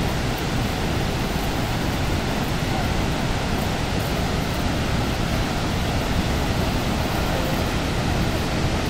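Steady rush of Niagara's Horseshoe Falls: a loud, even wash of falling water with a deep low rumble, unchanging throughout.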